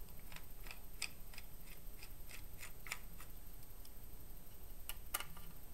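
Screwdriver tightening screws on a Kodak Brownie Bull's-Eye camera: a run of small clicks, about three a second, for the first three seconds, then two sharper clicks near the end.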